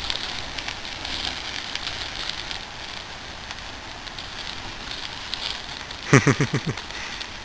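Rain falling on the burning, molten plastic of a microwave oven fire, with a steady hiss and many fine crackles. About six seconds in comes a brief loud burst of rapid pulses falling in pitch.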